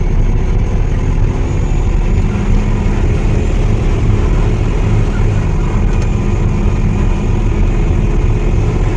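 Loaded truck's diesel engine running steadily, heard inside the cab with road rumble, while the truck drives on. A steady engine tone comes in about two seconds in.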